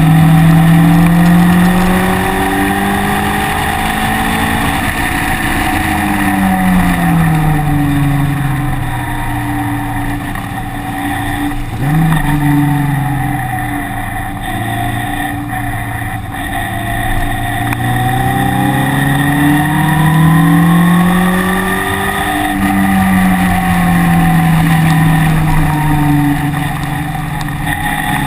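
Engine heard from on board during a lap of a wet circuit, its pitch repeatedly rising under acceleration and falling off for corners.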